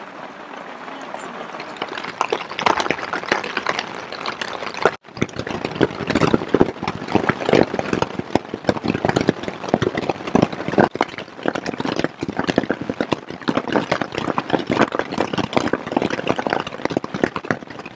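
Hail and rain pelting a tent's fabric from inside the tent, a dense, uneven patter of hits. It cuts out for an instant about five seconds in.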